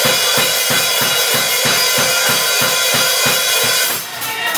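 Live rock band playing loud: drum kit pounding a steady kick-drum beat of about four hits a second under a constant wash of cymbals, with guitars ringing over it. The beat breaks off shortly before the end.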